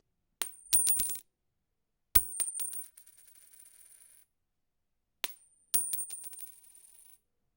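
A metal coin dropped onto a hard surface three times. Each drop bounces several times with a bright, high ring and settles within a second or two.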